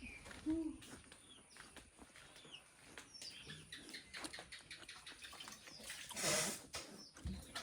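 Faint, scattered bird chirps, with a brief soft rush of noise about six seconds in.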